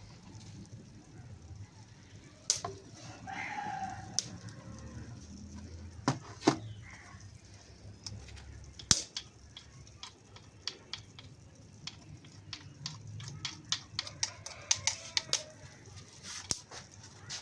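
Kitchen utensils clicking and knocking against cookware, the sharp clicks coming faster in the second half. About three seconds in there is a brief call-like sound.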